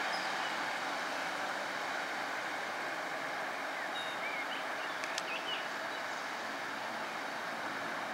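Steady rushing vehicle noise that slowly fades, with a few bird chirps about four and five seconds in.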